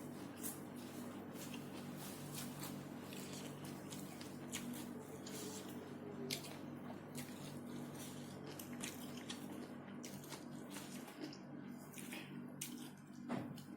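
Close-miked eating sounds: wet chewing and lip smacks, many short irregular clicks, over a steady low hum.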